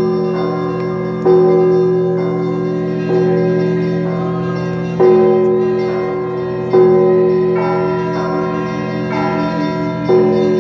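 Orthodox church bells ringing: several bells sounding together, struck afresh roughly every two seconds, each strike ringing on and fading into the next.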